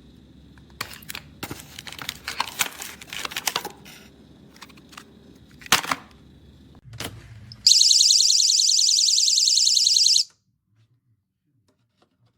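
A battery window/door alarm's siren sounds for about two and a half seconds, a loud high-pitched warbling tone that cuts off suddenly. Before it come several seconds of clicks and rustling as the unit is handled.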